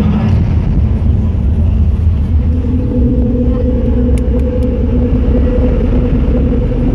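Deep, loud electronic bass drone played over an arena sound system, picked up by a phone in the crowd; steady held notes swell in about two and a half seconds in.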